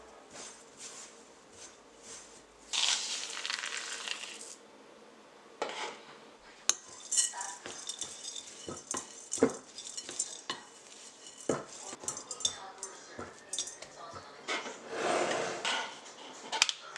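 A utensil clinking and knocking against a mixing bowl as cookie dough is worked by hand, in many short irregular clinks, with two longer, noisier stretches about three seconds in and near the end.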